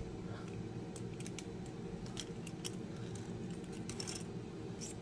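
Scattered small clicks and taps of 3D-printed plastic linkage parts being handled and fitted together, including a plastic C-clip pressed onto a post, over a faint steady hum.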